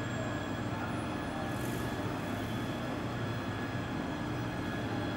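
Steady mechanical hum of a multi-wheeled self-propelled transporter carrying a rocket engine section slowly across a factory floor, with a short hiss about a second and a half in.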